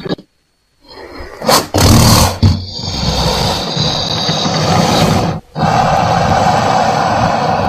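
Crocodile roaring: after a short silence, a loud roar about a second and a half in, then a long, steady, rough growl broken once by a brief pause.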